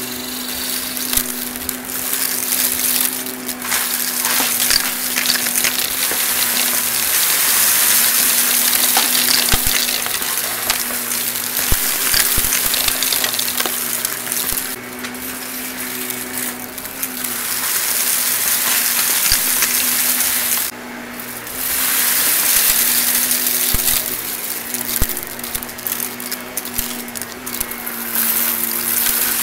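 Shark Navigator XL upright vacuum running: a steady motor hum under a hissing rush of air, with a constant crackle and ticking of glitter and grit being sucked up off the carpet. The hiss drops out for about a second roughly two-thirds of the way through.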